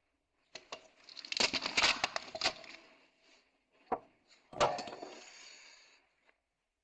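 Car door lock parts and tools being handled: a flurry of quick metallic clicks and rattles for about two seconds, then a single knock, then a sharper knock that rings out and fades over a second or so.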